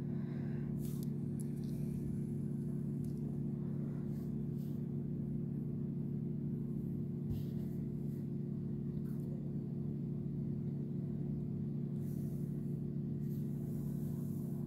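Steady low hum of a running machine or appliance, unchanging, with a few faint short clicks and rustles on top.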